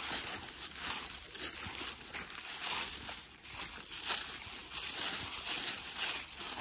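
Footsteps crunching and rustling through dry fallen leaves, a steady walking rhythm of about two steps a second.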